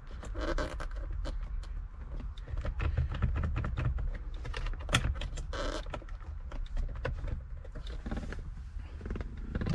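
Many irregular clicks and knocks of a tool prying at a steering wheel's plastic trim and pushing on the airbag's release tab, with rattling and handling noise as the airbag module is worked loose.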